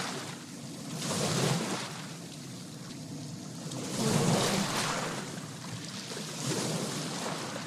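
Sea water lapping, small waves slapping and splashing in three gentle swells a few seconds apart.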